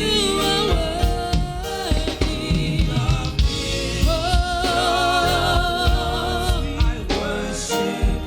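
Live gospel praise-and-worship music: voices hold long, wavering notes over a band with a drum beat and steady bass.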